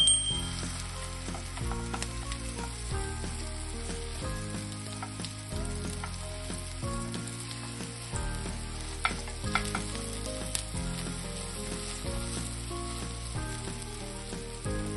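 Food sizzling as it fries in cooking oil in a pan, with scattered pops and crackles, a few sharper ones about two-thirds of the way in. Background music with a steady bass line plays over it.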